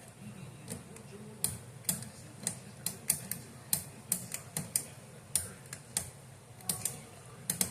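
Irregular sharp plastic clicks and taps, roughly two a second, as fingers pry and work at a fire alarm horn-strobe to pull a part off it.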